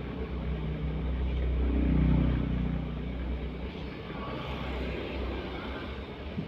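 Vehicle engine and road noise: a steady low rumble, with one engine growing louder and then fading about two seconds in.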